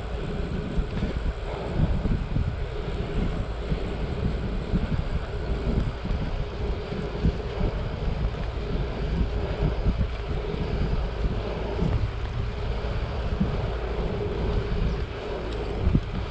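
Wind buffeting the microphone of a moving bicycle rider: a continuous gusty rumble with a faint steady hum beneath it.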